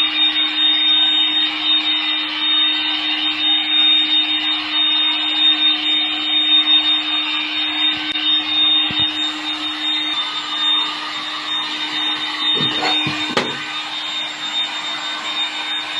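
An electric motor-driven workshop machine running steadily: a constant hum and a high whine over a rushing noise, with a brief wavering low sound about thirteen seconds in.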